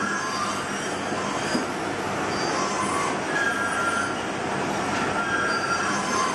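Carving knife slicing shavings off a wooden Dala horse blank in short strokes, each cut giving a brief high squeak, about once a second, over a steady background noise.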